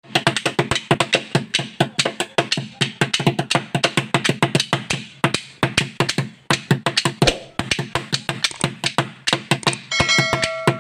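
Two sticks beating fast on a plastic can played as a makeshift chenda, in a dense Pandi melam-style rhythm of sharp, crisp strokes. A short electronic chime sounds near the end.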